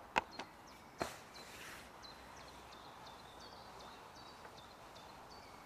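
Two sharp clicks and a short patter in the first two seconds as pellets are fired out as feed with a catapult and land on the water, then a small bird's faint, repeated short high notes.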